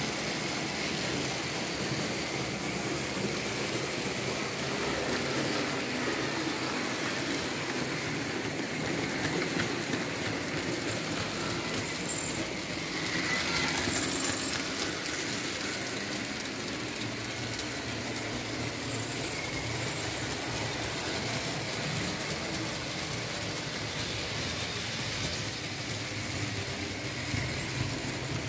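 Märklin H0 model of a BR 74 steam locomotive running with a freight train: a steady hum and rattle of the model's motor and wheels on the track, with a brief squeal near the middle.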